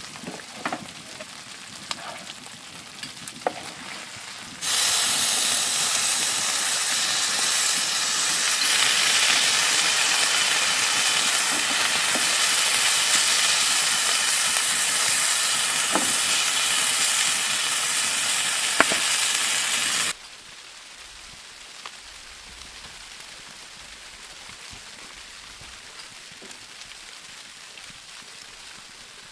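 Food frying in a pan on a wood stove: a faint sizzle with a few sharp clicks, then a much louder, steady sizzle that starts abruptly about five seconds in and cuts off about twenty seconds in, leaving a faint hiss.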